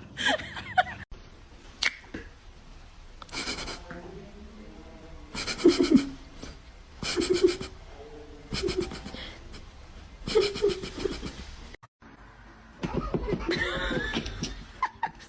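People laughing in several short bursts.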